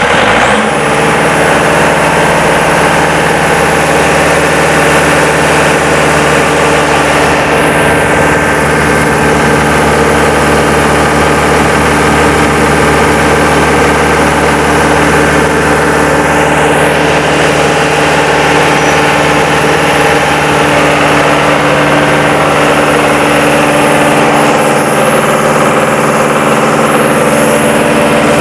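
4JB1T four-cylinder turbodiesel engine of a hydrant pump set catching right at the start and then running steadily, with a thin high whine over it.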